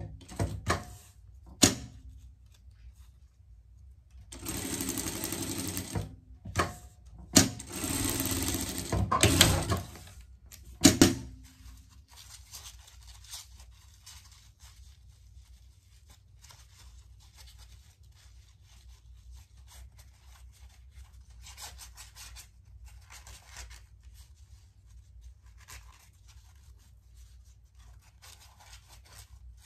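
Industrial straight-stitch sewing machine running in two short stitching runs, with scattered clicks, then two sharp loud clicks about eleven seconds in. After that, faint intermittent rustling of the waterproof fabric piece being handled and turned.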